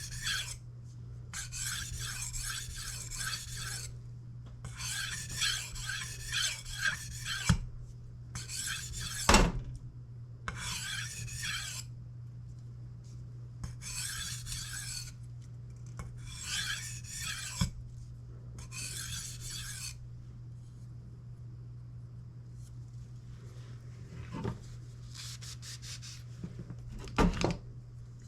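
Kitchen knife edge being drawn across a sharpening stone: runs of rasping strokes, each lasting a second or two with short pauses between, that stop about two-thirds of the way through. A few light knocks follow near the end.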